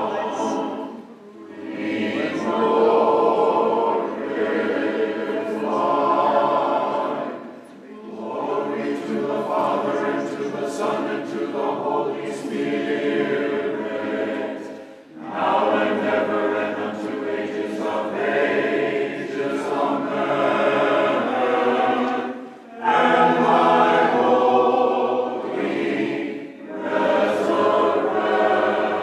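A choir singing a church hymn in phrases, with brief pauses between them.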